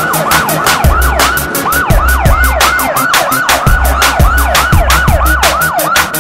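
Siren in quick repeated falling sweeps, about three a second, over music with a steady ticking beat and heavy bass.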